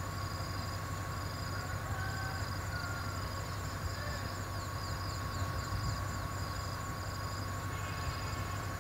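D10H diesel-hydraulic locomotive's engine idling with a steady low rumble, while insects chirp in a regular high pulse and a few short bird chirps come and go.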